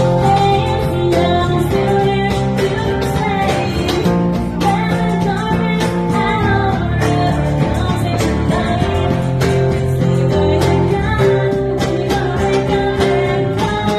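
A song with singing over guitar and a steady drum beat.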